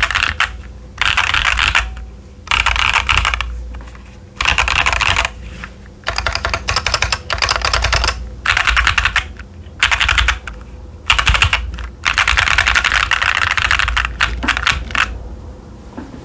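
Fast typing on a Keychron Q10 mechanical keyboard with TTC Chaotic Panda switches and Cherry-profile PBT keycaps: rapid runs of key clacks, a second or two at a time, broken by brief pauses.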